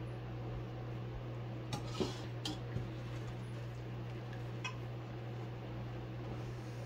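Metal ladle clinking against a pot and ceramic bowls as dal is served: a cluster of light clinks about two seconds in and one more near the five-second mark, over a steady low hum.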